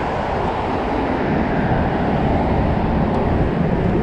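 Steady rumble of traffic on the highway bridge overhead, an even low noise with no breaks.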